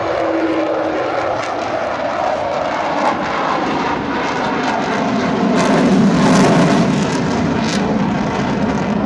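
Loud jet noise from the four Rolls-Royce Olympus turbojets of an Avro Vulcan bomber flying past overhead, swelling deeper and louder about five to seven seconds in.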